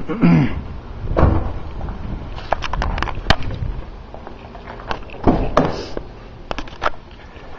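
Scattered clicks, knocks and thumps of handling around a car's open door, with a louder thump about a second in and a cluster of knocks about five seconds in.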